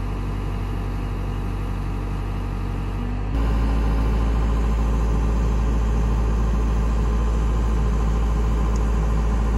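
Tractor engine running steadily under load while lifting a heavy beam, getting louder and deeper about three seconds in.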